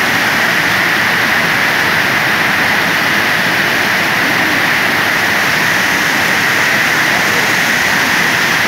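Floodwater pouring over a weir and churning white at its foot: a loud, steady rush of water.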